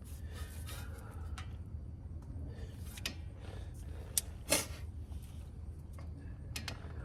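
Light clicks and clinks of hand tools on a car's brake caliper bolt as it is worked loose, with a sharper clank about four and a half seconds in, over a steady low hum.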